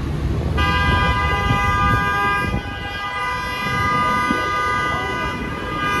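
A vehicle horn sounds about half a second in and is held as one long steady honk, over the low rumble of street traffic.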